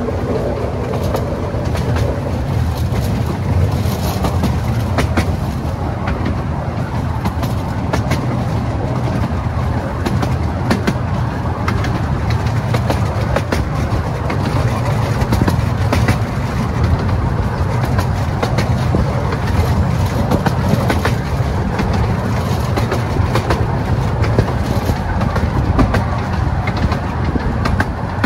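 A 12-inch gauge miniature railway train running along its track, heard from aboard an open carriage: a steady rumble of wheels on rail with frequent irregular clicks and clacks.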